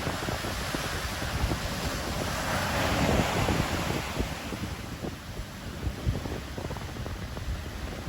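Ocean surf: a wave swelling to a peak about three seconds in, then easing back as it washes out. Wind buffets the microphone throughout.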